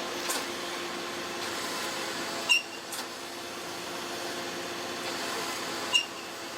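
Machinery running with a steady hum, broken twice by a short sharp high-pitched chirp about three and a half seconds apart.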